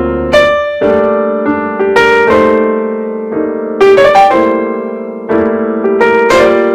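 Background piano music, single notes and chords struck every half second or so and left to ring.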